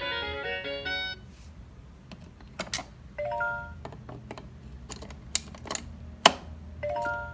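Electronic toy melody from a VTech alphabet train ending about a second in, then scattered sharp plastic clacks and knocks as the toy is handled. A short three-note electronic chime plays twice, about three seconds in and again near the end.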